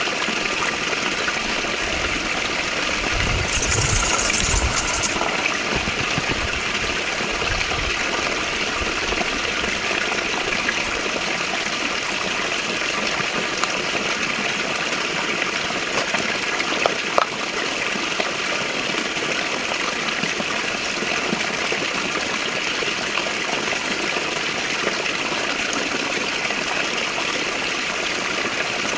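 Steady rushing of running water, with some low thumps a few seconds in and a couple of short clicks later on.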